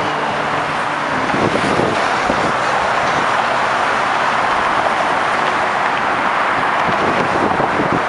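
Steady noise of road traffic driving past close by: tyre and engine noise from cars and trucks on the bridge roadway, running on without a break.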